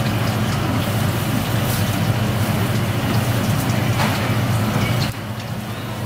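Steady low hum under a wash of background noise, with a few faint ticks; it drops in level about five seconds in.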